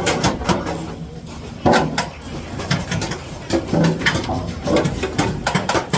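Irregular knocks and clatter from work on aluminium formwork, with short bursts of voices in between.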